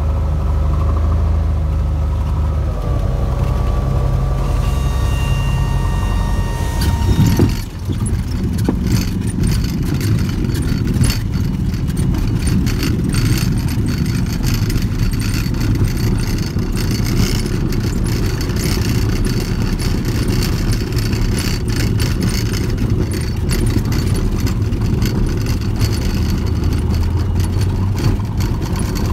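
Cessna 182's engine and propeller droning in the cabin on final approach, the pitch dropping about three seconds in as power comes back. About seven seconds in the wheels touch down with a thump, and the rest is a low rumble with the cabin rattling and clattering as the plane rolls out over the rough, cracked runway.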